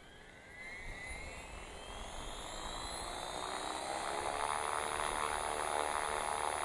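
Radio-controlled model helicopter spooling up on the ground: a whine that rises in pitch over the first few seconds while the rotor speeds up, getting steadily louder, then settling into a steady whirring whine near full rotor speed.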